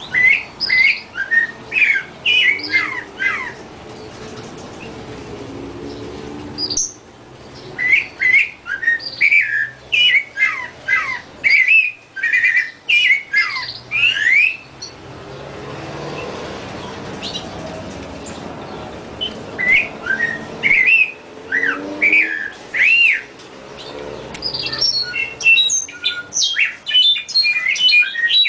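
Birds chirping and calling in dense bursts of short, quickly rising and falling notes, with two quieter stretches between the bursts.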